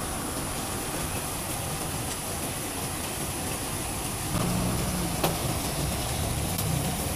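Steady road traffic noise, with a vehicle engine's low hum coming in about four seconds in. A single sharp plastic click sounds about a second later, as a clear plastic food container is picked up.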